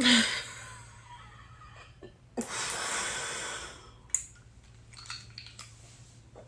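A person's sharp cough at the start, trailing off over about a second, then one long, noisy breath lasting about a second, starting about two and a half seconds in, and a brief click soon after.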